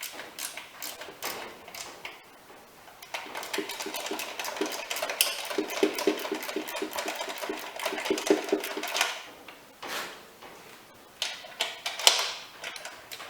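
Metal hand tools clicking and clattering on the lawnmower, with a run of rapid, regular clicks in the middle.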